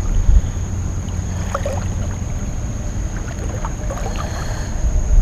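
Creek water sloshing and churning around the legs of someone wading, heard as a steady low rumble.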